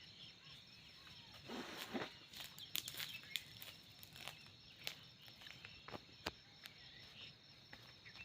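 Faint footsteps and rustling in dry, thorny brush, with scattered small snaps and clicks and a brief louder rustle about two seconds in, over a faint steady high-pitched hum.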